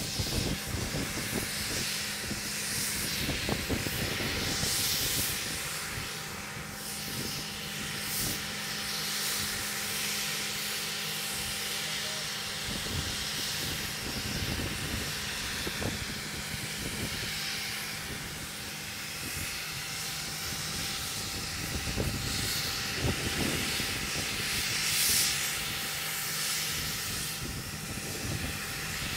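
A steady mechanical hum with a hiss over it, from equipment running while the jet engines have not yet started, with wind gusting on the microphone now and then.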